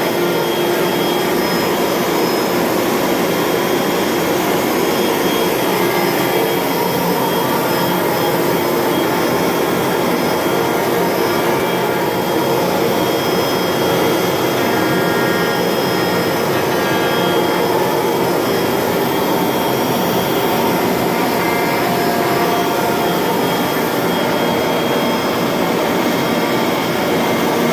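ShopBot 120 x 60 CNC router running, a steady rushing noise with a high whine whose pitch shifts slightly now and then.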